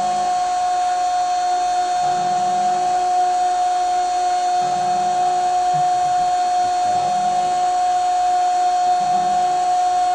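24-volt DC drill motor spinning a CD at high speed: a steady, high-pitched whine that holds one pitch.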